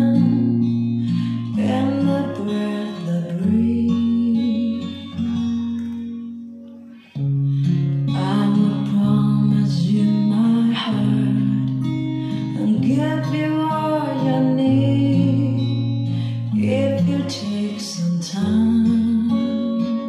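Guitar music with singing played back through JBL loudspeakers driven by a Sansui AU-666 integrated amplifier, as a listening test. The music fades about six seconds in and comes back abruptly a second later.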